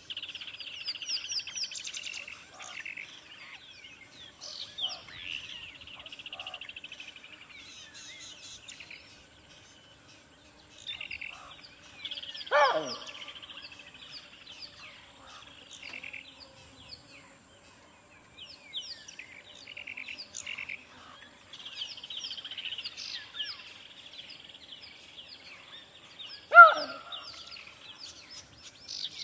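Birdsong: several small birds chirping, with rapid trills. A louder call sweeps steeply down in pitch twice, about twelve seconds in and near the end.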